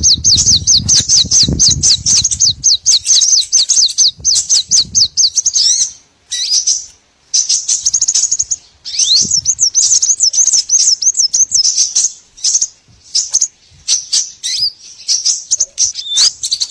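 Recorded calls of small songbirds played as a bird lure: rapid, high-pitched chirping in fast repeated notes, broken by short pauses about six and twelve seconds in. A low rumble sits under the first few seconds.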